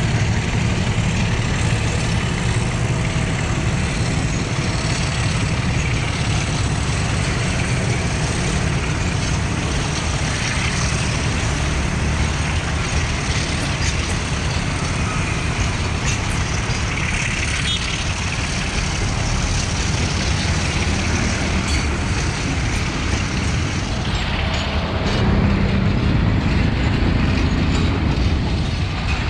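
Class M6 diesel locomotive hauling a long train of passenger coaches past at low speed: a steady engine rumble mixed with the rolling of coach wheels on the rails. The low rumble grows heavier near the end.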